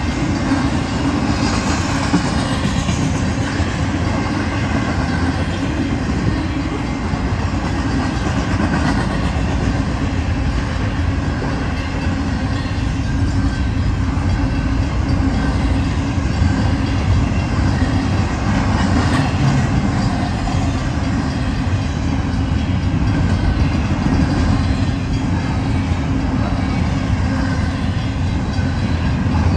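Double-stack intermodal freight train's container well cars rolling past at speed: a steady rumble of steel wheels on the rails.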